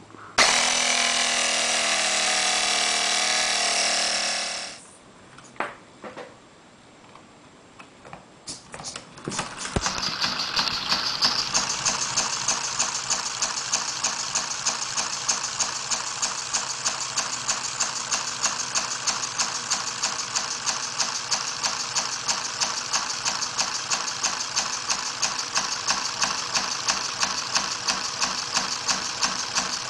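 A small electric air compressor motor runs for about four seconds and stops, followed by a few clicks. From about ten seconds in, a Lego Technic pneumatic engine runs on compressed air with a fast, even mechanical rhythm from its cylinders and valve.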